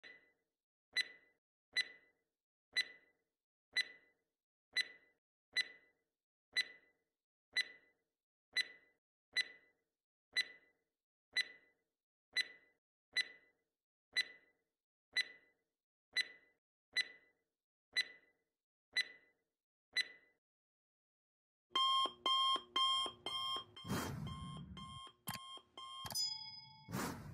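Countdown-timer sound effect: a short tick about once a second for some twenty seconds, then an alarm-clock bell ringing for a few seconds as time runs out. A brief chime follows near the end.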